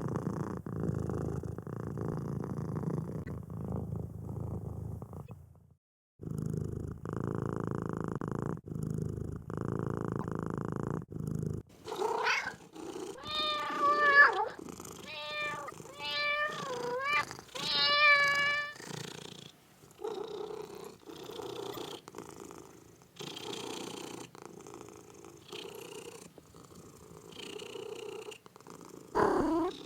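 Kitten purring steadily for the first dozen seconds, broken by a few short gaps. Then a run of about six high meows in quick succession, followed by quieter sounds and one more meow near the end.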